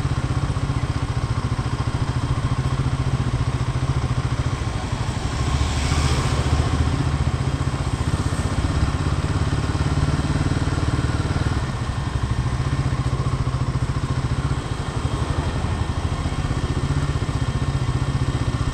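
Royal Enfield single-cylinder motorcycle engine and exhaust running steadily on the move, picked up close on the bike, briefly louder about six seconds in.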